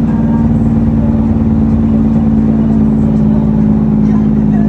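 Freightliner dump truck's diesel engine running steadily under way, heard from inside the cab as a loud, even drone.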